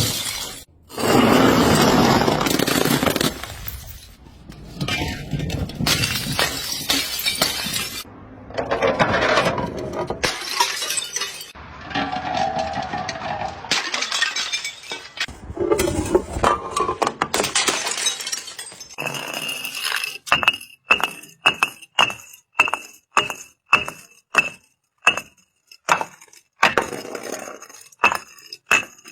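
Glass bottles and jars smashing on concrete steps: a series of loud shattering, crunching crashes. Near the end, a glass bottle clinks down the steps, knocking about twice a second with a ringing note on each hit.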